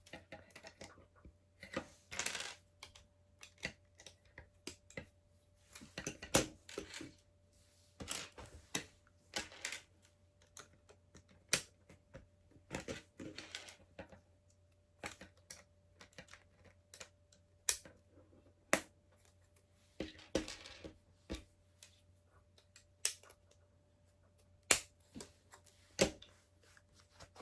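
Plastic LEGO bricks clicked, tapped and pressed together by hand: irregular sharp clicks, a second or two apart, with a few brief rustles of pieces being handled.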